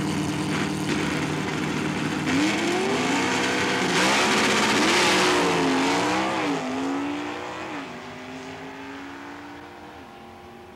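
Super Stock drag car's engine held at steady revs on the starting line, then launching with a sharp rise in pitch. It upshifts several times, each change a drop in pitch, and fades as the car pulls away down the strip.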